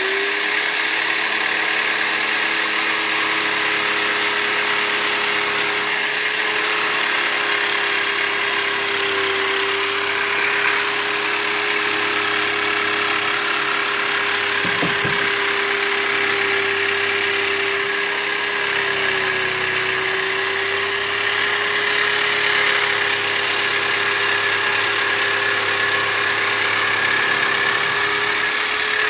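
Electric jigsaw running steadily, its blade cutting along a curved line through a wooden board: a steady motor whine under the rasp of the reciprocating blade in the wood. The motor pitch sags slightly a little past the middle, and there is one brief knock about halfway.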